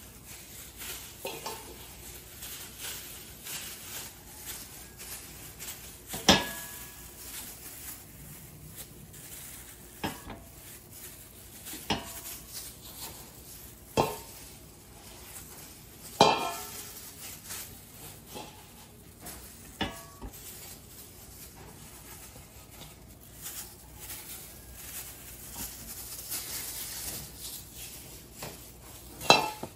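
Stainless steel mixing bowl and tray clinking as cookie dough is scooped out with a spatula and set down to be weighed. Sharp metallic clinks with a short ring come every two to four seconds, the loudest about six seconds in and just before the end.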